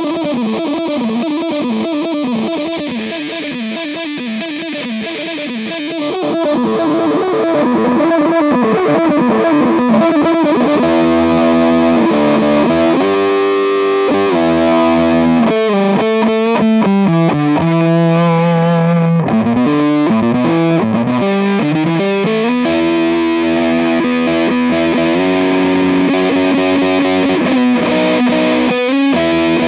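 Electric guitar played through a Ramalama Creepy Fingers fuzz pedal, a take on the classic fuzz circuit, with a thick distorted tone. Quick picked riffing at first, then louder held notes and chords from about six seconds in.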